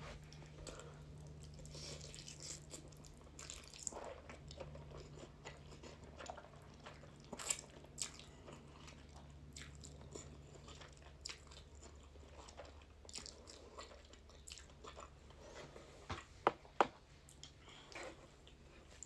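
Close-miked chewing of ramen noodles, soft wet mouth sounds with scattered small clicks, and two sharp loud clicks near the end.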